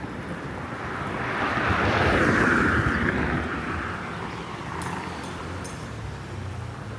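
A road vehicle driving past, its noise swelling to a peak about two to three seconds in and then fading away.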